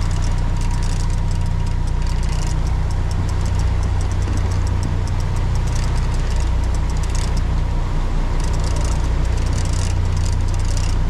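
A fishing boat's engines running with a steady low drone, with intermittent bursts of high hiss and clicking over it.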